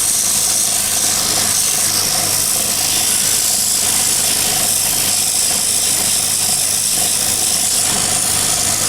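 Electric sanding machine running steadily with a low motor hum, its abrasive hissing against a wooden knife handle being sanded smooth.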